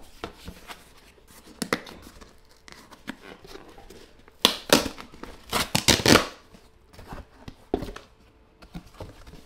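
Hands unwrapping and tearing open a smartphone's plastic-free paper packaging: scattered rustles and scrapes, with a run of louder tearing sounds about halfway through.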